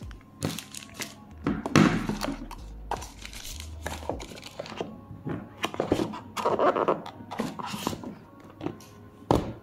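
A smartphone and its cardboard retail box handled on a wooden table: a series of irregular knocks, taps and thunks as the phone is lifted out and set down and the box is moved, with a sharp knock near the end.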